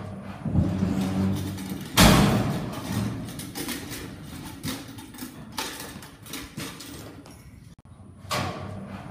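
Bucking bull released from a metal bucking chute: the chute gate and steel panels clang and rattle, with a loud sudden bang about two seconds in and more thuds and knocks as the bull bucks, and another rise near the end.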